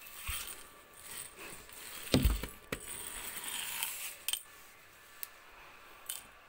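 Metal spatula scraping and stirring fried potato cubes and green chillies around a dark metal pan, with a loud knock against the pan about two seconds in. The scraping stops about four and a half seconds in, leaving a few light taps.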